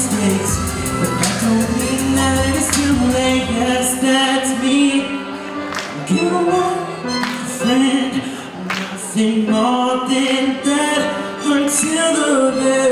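Young male vocalist singing a melody into a handheld microphone over instrumental music; the deep bass line drops out about four seconds in, leaving the voice over lighter accompaniment.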